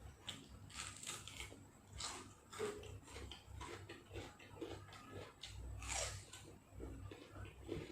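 A person chewing and biting food at close range, with irregular crisp crunches.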